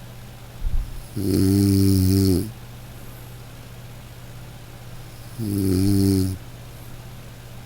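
Slow, rhythmic snoring: two long snores about four seconds apart, each lasting a second or so, over a steady low hum. A brief low thump comes just before the first snore.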